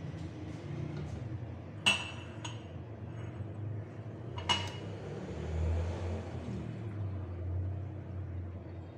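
Ceramic mugs clinking against the table and the saucepan: two sharp clinks about two seconds in and another a little later. Hot milk tea is then poured from a metal saucepan into a mug with a steady low splashing.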